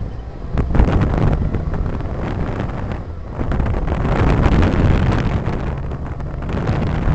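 Wind buffeting the microphone over the low rumble of a car driving along a road. The buffeting gusts unevenly and grows a little louder about three seconds in.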